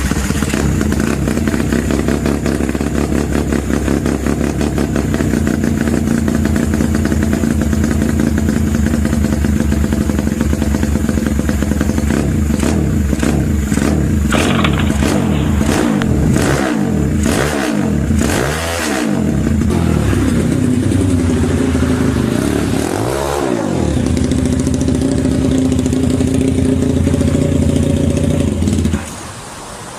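Small motorcycle engine, from a homemade pocket or pit bike, running steadily. In the middle its pitch swings down and back up several times, with a run of sharp clicks. The engine sound cuts off suddenly about a second before the end.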